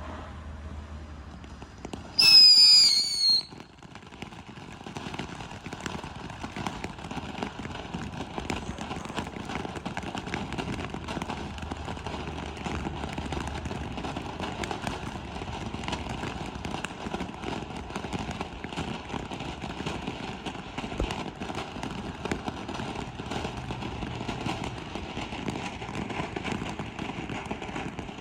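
Mad Hornet 'Cuckoo' crackling, whistling fountain firework: a loud whistle, falling slightly in pitch, lasts about a second, then a long steady spray of dense crackling follows.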